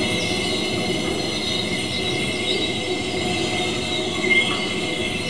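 Tin boxes set vibrating by electromagnetic coils and resonating as sound boxes: a steady metallic drone of several held high tones over a rough, grainy low noise, with a brief brighter squeak about four seconds in.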